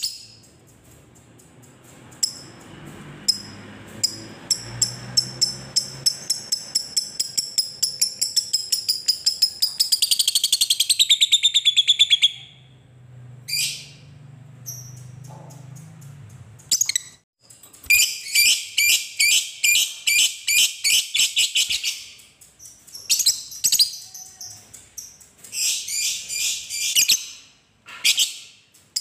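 Fischer's lovebird giving its long chattering song (ngekek): high, fast repeated chirps that speed up into a dense trill which stops about twelve seconds in, then after a few short calls several more bursts of rapid chattering.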